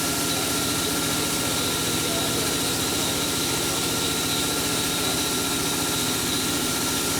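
A machine running steadily, an engine-like drone with a fast even pulse and a constant high whine, unchanging throughout.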